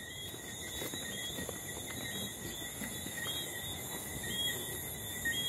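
Night chorus of crickets and other insects: several steady high-pitched trills layered together, with short chirps repeating about once a second.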